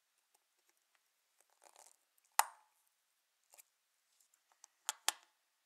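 Small clicks and taps of watchmaker's tools handling a pocket watch movement at the bench: one sharp click about two and a half seconds in and two sharp clicks close together near the end, with fainter ticks and a brief rustle between.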